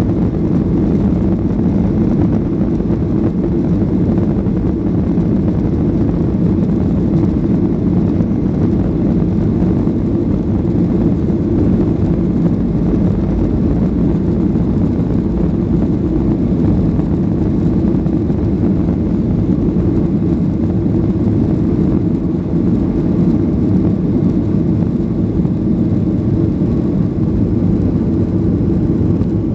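Boeing 737-800's CFM56 jet engines and airflow making a steady, loud drone, with no change in pitch or level.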